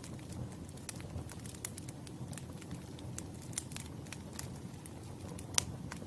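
Campfire crackling: irregular sharp pops and snaps of burning wood over a low, steady rumble of flames, with one louder pop about five and a half seconds in.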